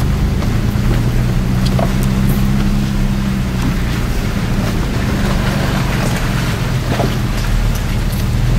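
A 4x4's engine running at a steady pitch while water splashes and rushes around the vehicle as it drives up a flooded creek bed.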